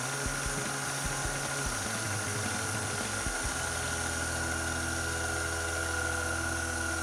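KitchenAid stand mixer motor running steadily on speed 2, driving the pasta roller attachment, with a steady whine over its hum. About three and a half seconds in, the low hum changes and becomes steadier as the dough sheet passes through the rollers.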